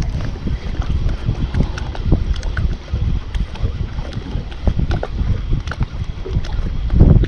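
Wind buffeting the microphone with water lapping against a small fishing boat, and scattered light clicks and knocks.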